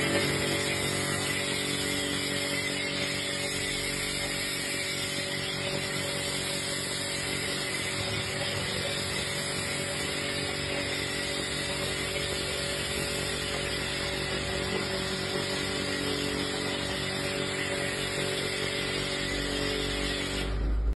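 Pressure washer running steadily, its motor and pump holding one even pitch under the hiss of the spray. The spray first feeds a foam cannon and near the end becomes a plain water jet.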